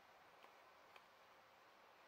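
Near silence: faint room hiss with two light ticks about half a second apart.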